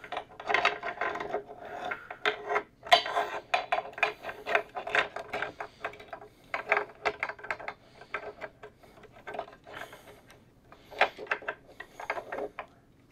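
T-handle 6mm hex wrench turning a screw out of the stringing machine's metal turntable: a quick run of metal clicks and scrapes, coming in short bursts as the wrench is turned and re-gripped.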